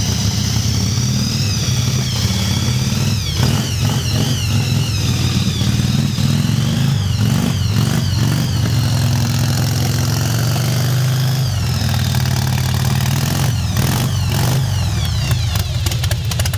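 Twin-engine custom motorcycle with two V-twin engines running at idle, a steady loud engine note.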